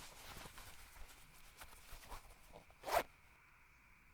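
Faint rustling and scratchy rasps of clothing being handled, with small ticks and one sharper, louder rasp about three seconds in.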